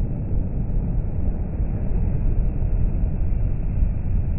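Scania articulated lorry driving past on a motorway: a steady, deep, muffled rumble of engine and tyres.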